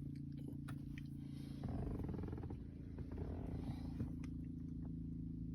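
Toyota Tacoma running at idle, heard from inside the cab as a steady low hum, with a few faint clicks. The hum shifts slightly about one and a half seconds in.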